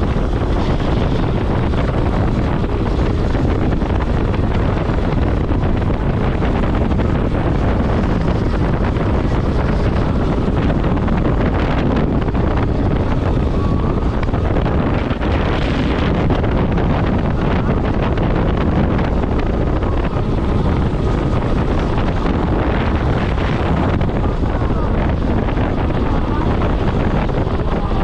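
Strong wind buffeting the microphone: a loud, steady rush of wind noise, heaviest in the low end.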